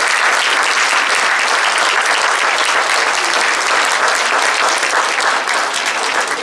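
Audience applauding: a steady clatter of many hands clapping at once.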